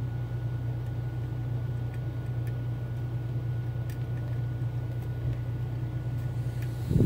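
Steady low hum in the background, with a few faint, sparse clicks from a pick and tension wrench working the pins of a Mul-T-Lock Interactive dimple lock. A short, louder low thump comes right at the end.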